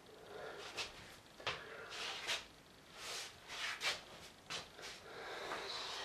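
Fur fabric of a fursuit rustling and brushing close to the microphone as the wearer moves, in short irregular bursts.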